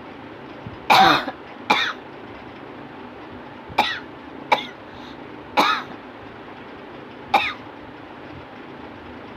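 A person coughing on purpose for a cough challenge: six separate coughs, a second or two apart, the first the longest and loudest.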